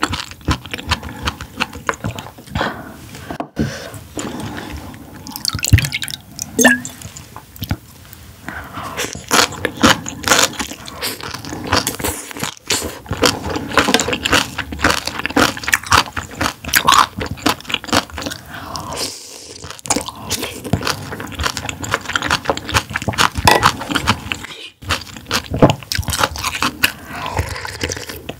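Close-miked eating sounds: wet chewing and smacking of soft, chewy food, many short clicks in quick succession, with crunches, liquid sounds and utensils scraping a dish.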